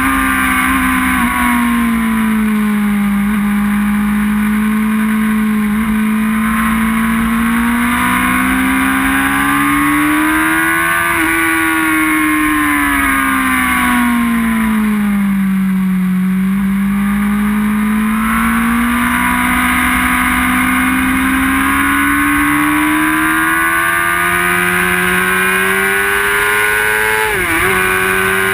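Onboard sound of a high-revving inline-four sport bike engine at speed, loud and steady, its note slowly rising and falling with the throttle. Near the end the pitch dips sharply for a moment and picks up again.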